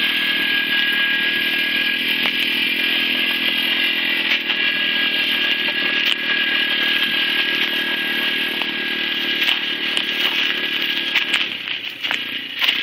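Small youth ATV's single engine running at a steady throttle with a buzzing whine, dropping in level near the end as the quad moves away.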